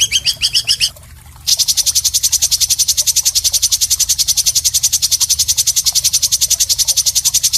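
Songbird masteran song: a fast run of short sliding high notes breaks off about a second in. After a brief gap it gives way to a long, even, rapid trill of high pulses, about nine a second.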